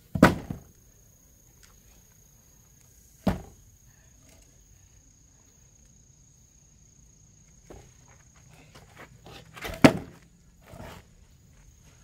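Heavy wooden logs being moved and set down by hand, making a few dull thuds. The loudest comes just at the start and again about ten seconds in, with smaller knocks between.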